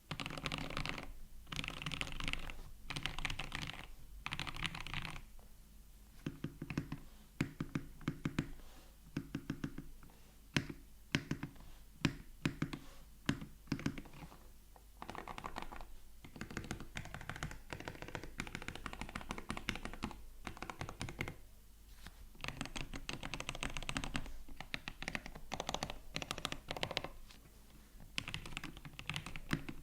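Custom Tofu65 mechanical keyboard with yellow milky switches, an aluminium plate and Mizu keycaps being typed on, with a poppy, creamy sound. Runs of fast typing alternate with slower, separate keystrokes in the middle, some of them louder.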